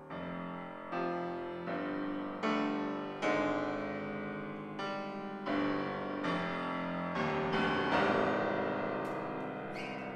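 Concert grand piano played solo: a series of struck chords about every three-quarters of a second, each ringing on and overlapping the next, loudest about eight seconds in. A few brief high sounds come near the end.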